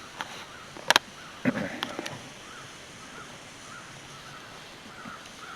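American crows cawing faintly, call after call, with a few sharp clicks about a second in.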